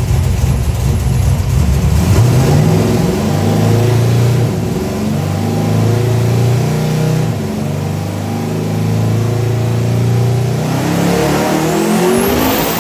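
Twin-turbocharged big-block V8 in a first-generation Camaro SS running loud on a chassis dyno. The engine note holds and steps through the middle. From about eleven seconds in it climbs steeply as the engine is run up under load, with a rising turbo whistle near the end.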